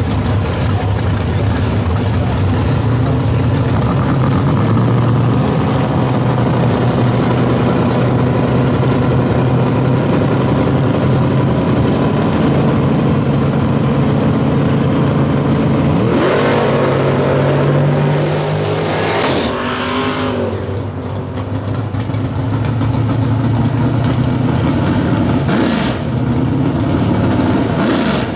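Drag-race car engines idling loudly and steadily at the start line, then a hard launch about sixteen seconds in: the engine revs up, rises again as it shifts, and fades off down the track. Another drag car's engine then idles steadily, with a quick rev blip just before the end.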